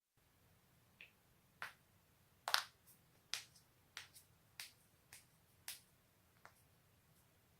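Joints cracking: a string of about a dozen short, sharp pops at uneven intervals, the loudest about two and a half seconds in.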